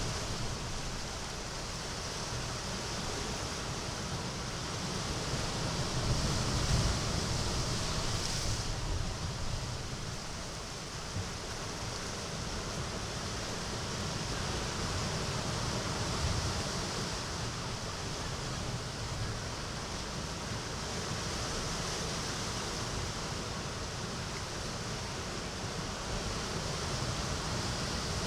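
Sea waves washing into a small cove: a steady hiss of surf that swells and eases. The loudest wash comes about six to eight seconds in, and its hiss stops abruptly.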